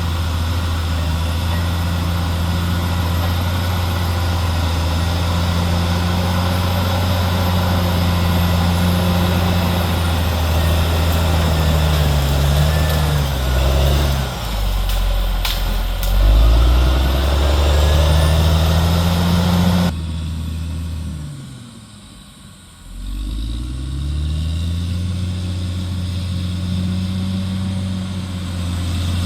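CAT D6R XL bulldozer's diesel engine running steadily under load, its pitch sagging and climbing back about halfway through, with a couple of sharp knocks. About three quarters of the way in the engine note drops away sharply and sinks for a couple of seconds, then revs back up to steady running.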